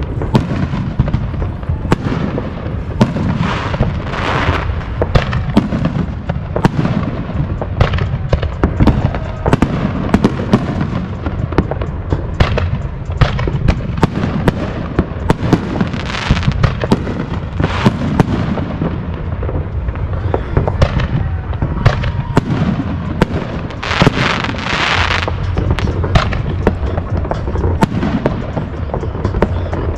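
Aerial fireworks going off without pause: a dense run of sharp bangs and booms. Crackling bursts swell up several times, loudest near the end.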